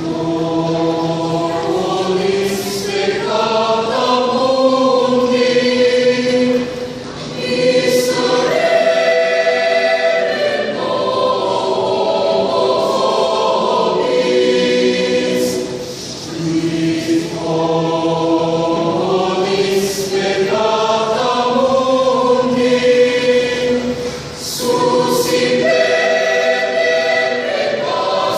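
Mixed church choir singing in harmony, in long held phrases with brief breaths between them.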